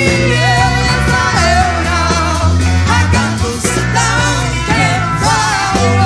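Psychedelic rock band playing live, with a singer's voice carried over bass and drums.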